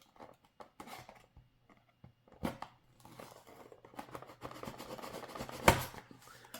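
Blind-box packaging being handled and torn open: a few light taps and clicks, a sharp snap about two and a half seconds in, then a few seconds of crinkling and tearing with a loud crack near the end.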